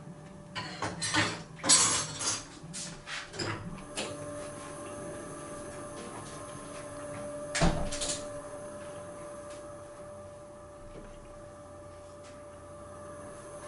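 Tableware handled during a meal: a quick run of clicks and knocks of utensils against ceramic dishes in the first few seconds, then one louder knock about halfway through, over a faint steady hum.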